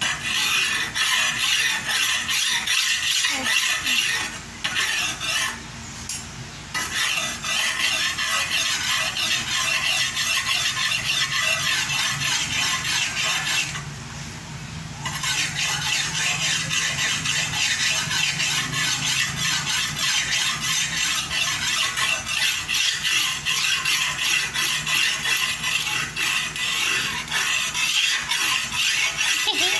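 Steel bolo (machete) blade being sharpened: quick repeated rasping strokes of the sharpener along the edge. The strokes stop briefly about 4 and 6 seconds in and for about a second around 14 seconds in.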